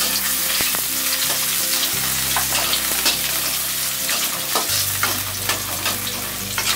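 Chopped onion and two dried red chillies frying in a tablespoon of hot oil, sizzling and crackling steadily while being stirred with a spatula.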